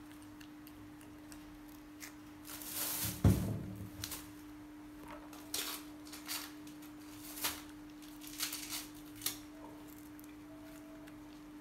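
Baby macaque handling and eating lotus seeds: soft rustling of the seed pod and short crisp clicks and crunches as seeds are peeled and chewed, with one louder thump a little over three seconds in. A steady low hum runs underneath.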